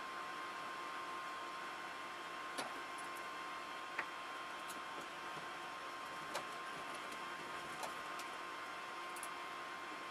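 A few faint, sharp clicks spaced a second or two apart over a steady background hiss with a constant high hum.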